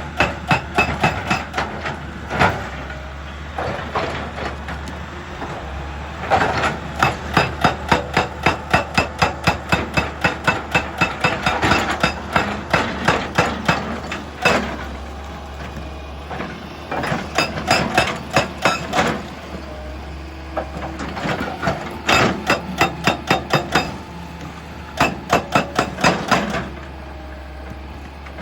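Excavator-mounted hydraulic breaker hammering rock in bursts of rapid blows, about five a second, stopping and restarting several times over the steady hum of the machine's engine.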